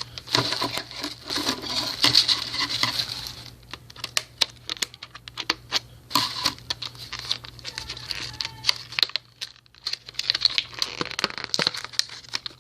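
Packaging of a SanDisk SSD being handled and worked open: crinkling and rustling with many small clicks, in three spells separated by short pauses.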